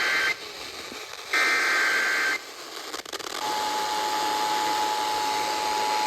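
Emergency Alert System tones broadcast over FM radio, announcing a severe thunderstorm warning. The end of one buzzing digital header burst, then a second burst about a second long, then the steady two-tone attention signal starting about three and a half seconds in.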